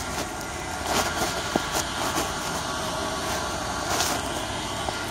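Footsteps crunching through dry grass and dead leaves, with a few sharper rustles of brush about 1, 2 and 4 seconds in, over a steady background rumble.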